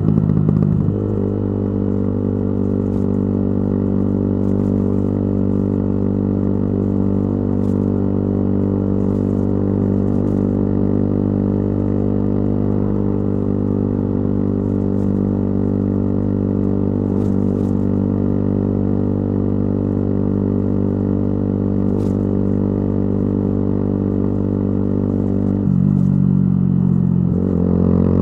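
Yamaha YZF-R125's 125 cc single-cylinder four-stroke engine droning through an aftermarket exhaust while riding. The pitch drops about a second in and then holds steady at cruising revs; near the end the pitch rises and the exhaust gets louder as the rider accelerates.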